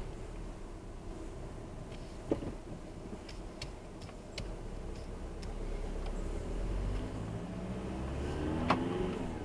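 A car's engine and tyres heard from inside the cabin while it drives slowly, with a knock about two seconds in and a few faint clicks. Near the end the engine note rises as the car accelerates, and a sharp knock comes just before the end.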